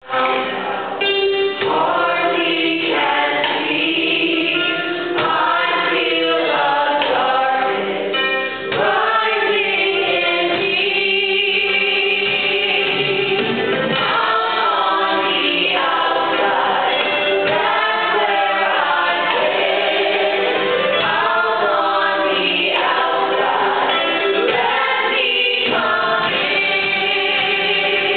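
A youth ensemble cast singing a musical-theatre number together in chorus, performed live on stage and heard from the audience.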